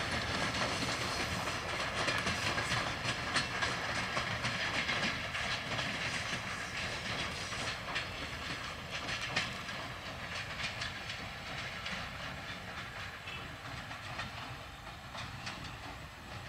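Broad-gauge passenger coaches' wheels clattering over rail joints and points as the train pulls away. The clacks grow fainter toward the end.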